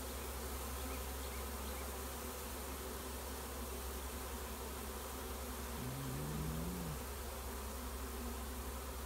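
A swarm of honeybees buzzing steadily as the colony flies around and moves into a swarm trap. A lower, louder hum rises and falls for about a second just past the middle.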